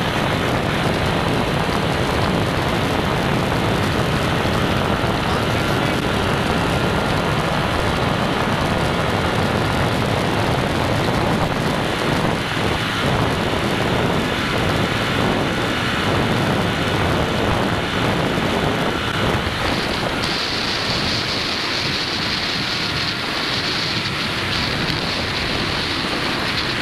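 Steady wind rush over the microphone while riding a Royal Enfield Continental GT650 flat out at high speed, around 140 km/h. Its 648 cc parallel-twin engine runs at high revs under the wind noise.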